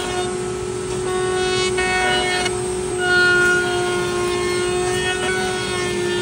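Table-mounted wood router spinning a bearing-guided bit at high speed, a steady high whine, as the bit trims the edge of a wooden cutting board fed past it by hand. The whine wavers slightly as the cut loads the bit.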